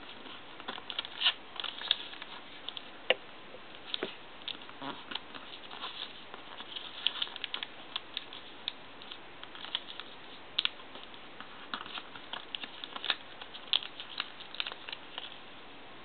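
Origami paper being folded and creased by hand: irregular crinkles, taps and rustles of the paper, over a faint steady hiss.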